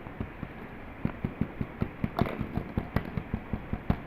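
A rapid, irregular series of sharp taps or knocks, several a second, starting about a second in.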